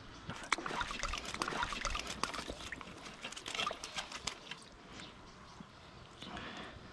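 Small stream trickling, with a dense run of sharp crackling clicks over the first four seconds or so that then die away.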